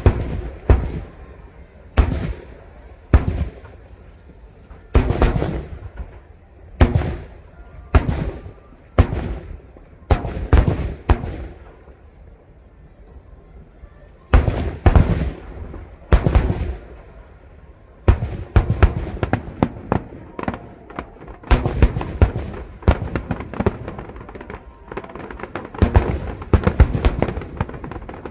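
Fireworks display: aerial shells bursting with loud bangs about once a second, then a short lull, then a dense run of many small crackling bursts near the end.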